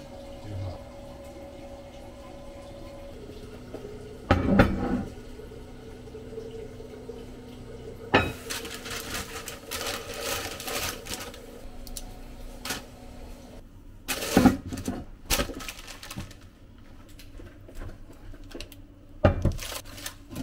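Knocks and clatter of a heavy enamelled cast-iron Dutch oven and its lid being handled on a countertop, a few separate clunks over a steady low hum.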